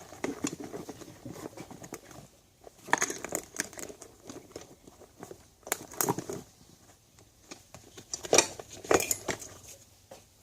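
Hand tools being moved about in a tool backpack: irregular rustling of the bag with light clinks and knocks of metal tools, loudest in a few brief clusters.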